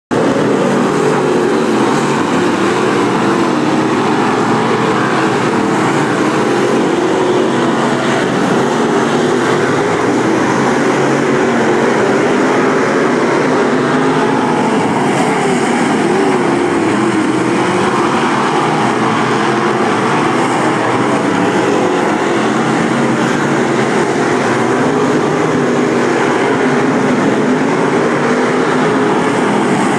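Several limited late model dirt-track race cars' V8 engines running hard around a clay oval: a loud, continuous engine drone whose pitch rises and falls as the cars pass and go into the turns.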